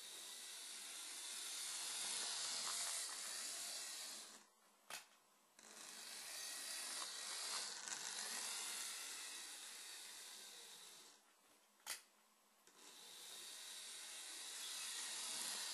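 An old Lima OO gauge Class 31 model locomotive running on the track, its motor and gears giving off a steady, high, hiss-like running noise that is a little noisy. The noise cuts out twice, about four and a half and eleven seconds in, each time for about a second, with a single click in the gap before it starts again.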